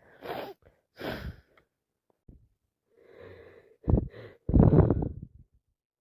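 A person with a heavy head cold sniffing twice, drawing in a wheezy breath, then letting out a loud sneeze in two parts, a short one and then a longer, louder one about four seconds in.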